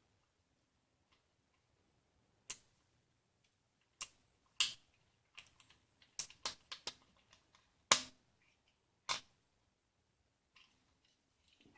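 Scattered sharp clicks and taps of small hard parts and tools being handled, coming irregularly, the loudest about eight seconds in.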